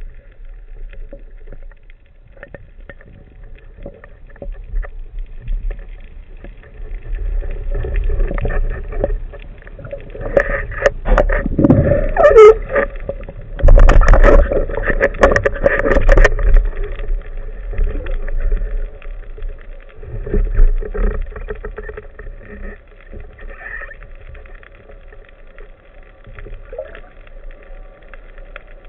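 Underwater noise picked up by a camera housing mounted on a speargun: water movement with knocks and rubbing against the housing, busiest and loudest in the middle as a speared octopus is handled right against it.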